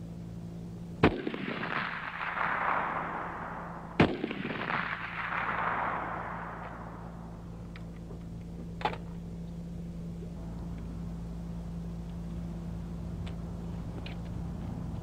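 AK-47 assault rifle fired two single shots about three seconds apart, each sharp crack followed by a long echo rolling away over the range. A fainter, shorter shot comes about nine seconds in, over a steady low hum.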